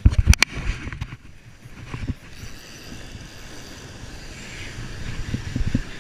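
Handling noise from a spinning rod and reel being cranked in, with two sharp knocks about a third of a second in and softer thumps near the end, over wind rumbling on the microphone and surf washing on the beach.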